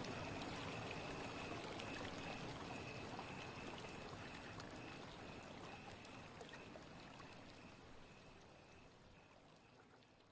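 Steady rushing water, like a flowing stream, fading out gradually toward the end.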